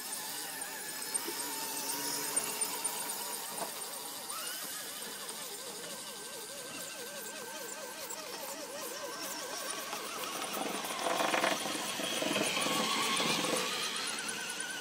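Electric motors and gears of radio-controlled scale crawler trucks whining as they creep up a dirt rut, the pitch wavering and gliding with the throttle. About eleven seconds in the sound grows louder for a few seconds.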